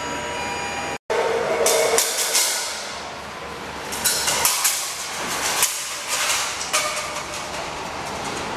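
Capri funicular car running along its rails, with a busy metallic clatter of clicks and clanks from the wheels and track over a steady rumble. The sound cuts out for an instant about a second in.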